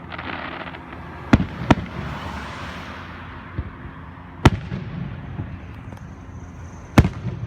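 Aerial fireworks bursting: four sharp bangs, two close together about a second and a half in, one near the middle and one near the end, with a hissing spray of sound between the first few.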